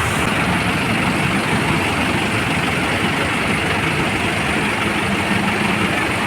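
Steady loud rushing noise of surf and wind, with a low steady hum coming in about four and a half seconds in.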